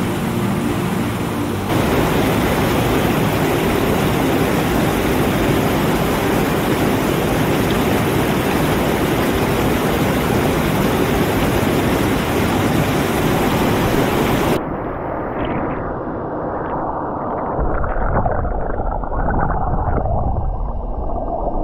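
Waterfall rushing: the steady full roar of water falling down an 18 m tiered cascade. About 15 s in, the sound changes abruptly to a duller, muffled rush with the high hiss gone.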